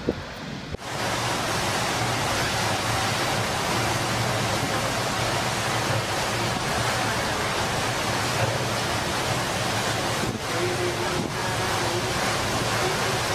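Storm wind and heavy rain: a steady, dense rush with the gusts buffeting the microphone. It starts suddenly about a second in.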